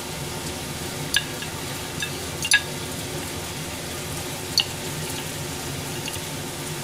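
A pan of beef and carrots sizzling steadily on the stove, with a few sharp clicks as kitchen scissors snip through fried flounder on a plate, the loudest about two and a half seconds in.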